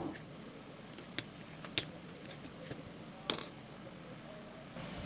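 A cricket trilling steadily in the background, with three short, light clicks as small screws and the plastic switch board are handled.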